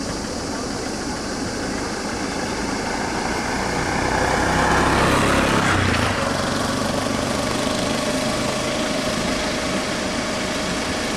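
Motor vehicle engines idling steadily. One engine grows louder and fades again about four to six seconds in.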